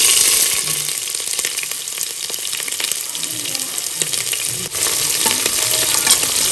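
Washed pieces of buffalo trotter frying in hot mustard oil with fenugreek seeds, a loud sizzle that starts suddenly as the wet meat goes into the oil and keeps going steadily.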